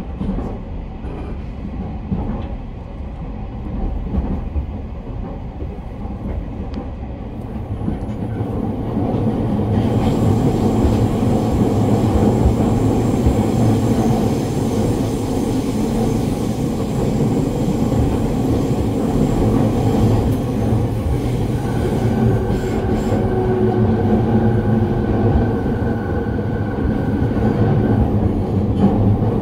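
Running noise heard inside a JR East E217 series electric train's motor car: wheel, rail and motor noise that grows markedly louder about eight seconds in, then stays loud. A thin steady high tone sounds over it for several seconds in the second half.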